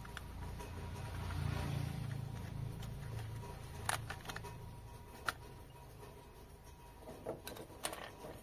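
Small screwdriver and hard plastic drone parts being handled: sharp clicks and taps about four and five seconds in and several smaller ones near the end, over a low rumble that swells and fades in the first three seconds.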